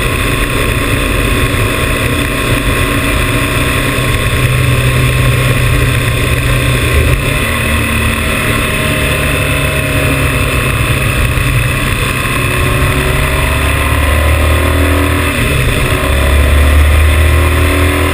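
Motorcycle engine running at road speed, heard from the bike itself, under a steady rush of wind over the microphone. The engine note drops about halfway through and shifts pitch again near the end as the speed changes.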